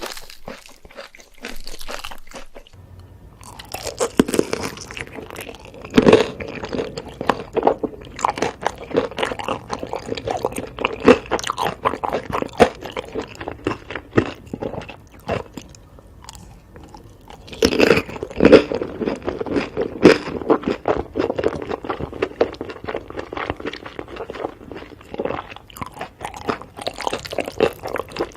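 Close-up eating sounds: a person biting into and chewing something crunchy. There is a run of loud crisp bites and crunching from about four seconds in, a short lull, then a second loud bite and more crunchy chewing.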